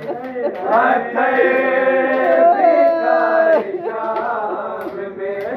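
A voice singing a Muharram lament (noha or souz) in long, slowly gliding held notes.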